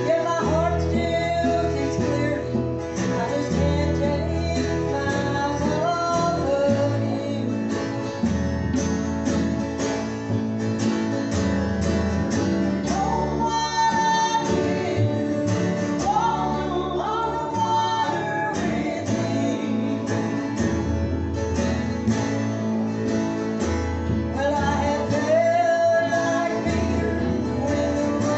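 Live gospel group singing with acoustic guitar accompaniment, in a country/bluegrass style, through a PA.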